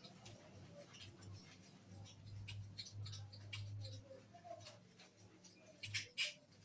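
Faint clicks and light scraping from clipper blades and small tools being handled, with two sharper clicks about six seconds in.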